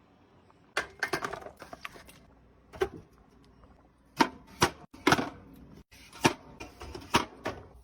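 Hard grocery items being handled and set down: about a dozen sharp, irregular clacks and knocks of cans and containers, starting about a second in.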